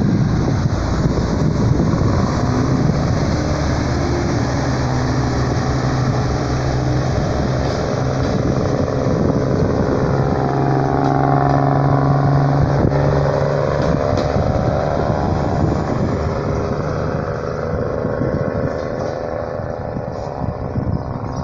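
Y2 (IC3-type) diesel multiple unit pulling away from a station stop: its diesel engines run under load, with the engine note rising and shifting in pitch through the middle. Wheel and rail noise runs beneath, and the sound eases off slightly near the end as the train draws away.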